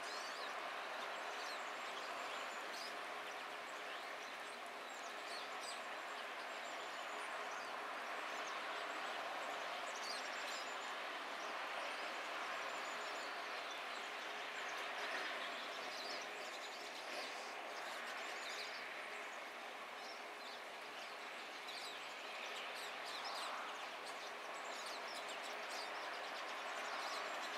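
Steady rush of distant road traffic, with many short, high bird chirps scattered throughout.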